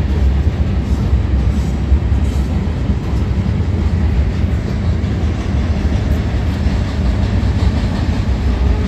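Ore train rolling across a steel railroad bridge: a steady low rumble of the cars, with the train's distributed power locomotive drawing near.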